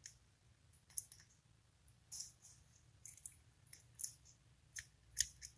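Faint, irregular small clicks and ticks of metal servo gears and shafts knocking against each other and the servo case as they are fitted into the gearbox by hand, the sharpest click about five seconds in.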